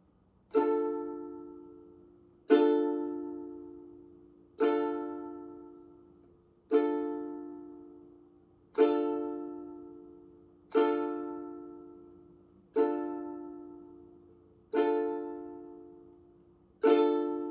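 Ukulele D minor chord strummed down slowly, nine single strums about two seconds apart, each left to ring out and fade before the next.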